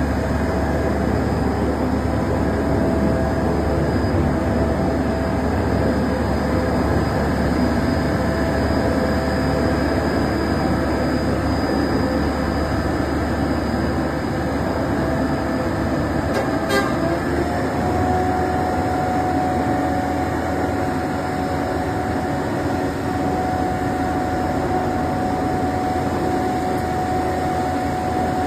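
Self-loading concrete mixer truck's engine running steadily under a held whine. The whine steps up in pitch about 17 seconds in, just after a single click.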